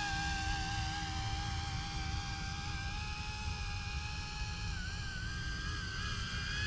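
Electric RC scale helicopter (YuXiang F09-S) in flight: a steady high motor-and-rotor whine that wavers slightly in pitch and dips briefly about five seconds in, over wind rumble on the microphone.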